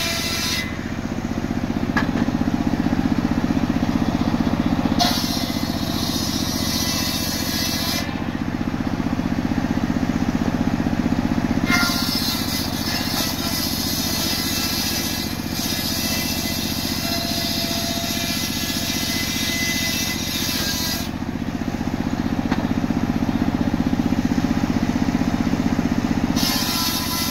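Large circular sawmill blade running with a steady low drone as a log is fed through it and ripped lengthwise.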